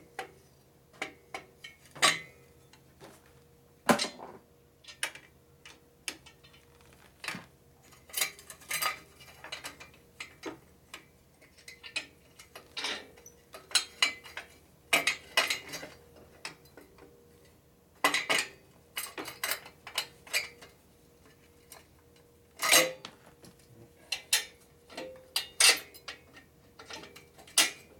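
Irregular metallic clinks and clanks of hand tools and exhaust hardware being handled on a motorcycle, some in quick clusters, over a faint steady hum.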